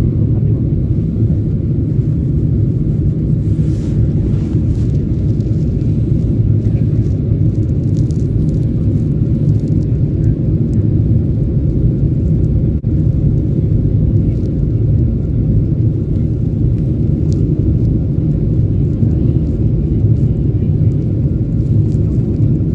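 Boeing 747-8 cabin noise in flight: a steady low rumble of engines and airflow heard from inside the passenger cabin, with a few faint ticks.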